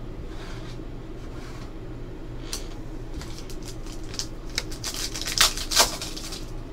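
Foil wrapper of a Panini Select basketball card pack crinkling as it is torn open by hand and the cards are slid out. It starts with scattered crackles and is loudest about five to six seconds in.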